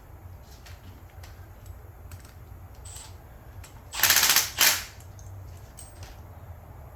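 Two short bursts of air hissing through a lawnmower carburetor about four seconds in, the first longer than the second: air blown through it to test whether the float needle valve seals. Light clicks of small parts being handled come before and after.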